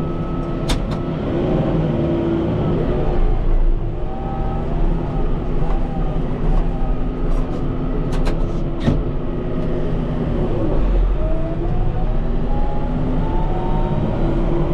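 Kubota M5-091 tractor's four-cylinder diesel engine running steadily under load, its pitch rising around ten seconds in. A few sharp knocks sound about a second in and again around eight to nine seconds in.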